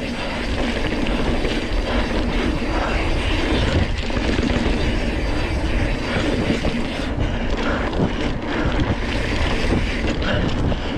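Steady rumble and rattle of a single-speed mountain bike, a Surly Krampus, riding over rough trail, with small knocks scattered through it and wind on the camera microphone.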